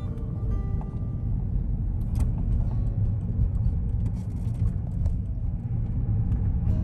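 Steady low rumble of a moving vehicle, with a few faint clicks about two seconds in.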